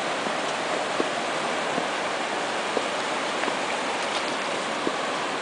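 Steady rush of flowing river water, with a few faint ticks over it.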